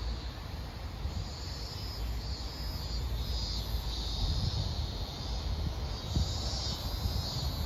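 Cicadas singing, a high shrill song that swells and fades about once a second, over a steady low rumble.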